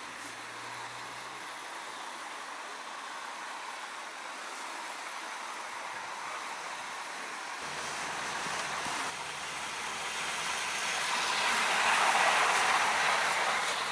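OO gauge model train running along its track, a steady mechanical whirr and rumble that swells to its loudest about three-quarters of the way through as the coaches pass close by, then eases off.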